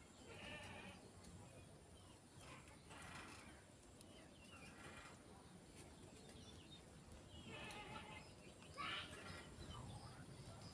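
Male canary calling faintly in several short phrases with quiet gaps between them.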